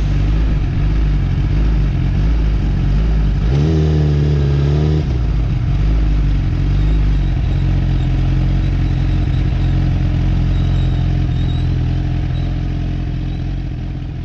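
Suzuki GSX-R1000R's inline-four engine running at low, steady revs, with a short rev rise and fall about four seconds in. The sound fades away near the end.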